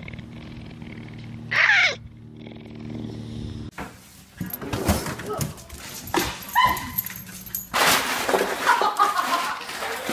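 A dog lets out one loud cry that falls in pitch about two seconds in; later, a small dog yips and whines amid rustling and knocking.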